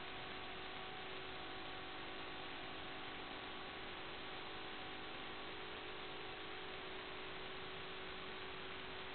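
Steady hiss with a faint constant hum, the static of an analog FPV video link's audio channel carrying no real sound.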